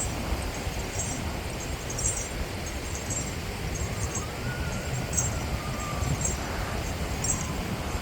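Steady low rumbling outdoor beach ambience, with faint scattered high ticks and a brief faint gliding tone about halfway through.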